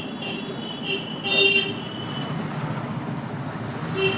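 Road traffic with short vehicle horn toots over a steady rumble of passing vehicles, the loudest toot about one and a half seconds in and another near the end.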